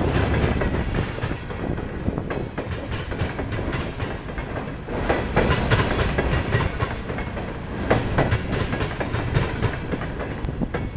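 Empty freight flatcars rolling past on steel wheels: a steady rumble with irregular clicks and clanks as the wheels cross rail joints.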